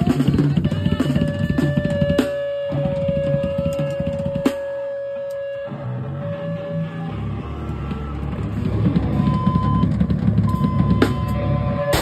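Electric guitar and drum kit played loosely between songs, not yet a full song. A long steady guitar tone holds for about five seconds over scattered drum hits, then a deep low note comes in about seven seconds in, with shorter guitar tones near the end.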